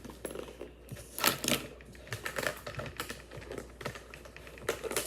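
Plastic clicking of a Wacky Tracks link fidget toy being handled, irregular clicks with louder snaps about a second in and near the end.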